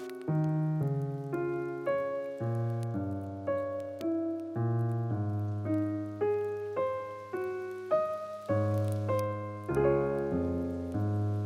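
Background piano music: a slow, gentle melody of single struck notes over low chords, about two notes a second, each note fading after it is struck.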